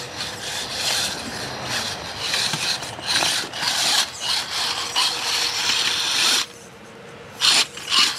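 Radio-controlled scale trail truck crawling over rough ground, with a rough scraping and grinding from its tyres and drivetrain that comes in uneven surges. It stops about six and a half seconds in, then returns in two short bursts near the end.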